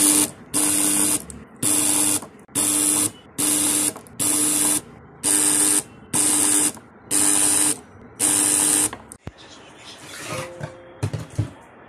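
Homemade transformer spot welder buzzing in about ten short pulses, roughly one a second, each a steady hum with a loud hiss, as it welds nickel strip onto lithium-ion cells. About nine seconds in the pulses stop, and irregular knocks and clatter follow as the welder's wooden box is handled.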